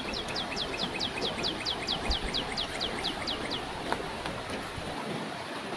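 A bird calling a fast series of short, falling whistled notes, about four or five a second, that stops a little over halfway through, over the steady rush of a flowing stream.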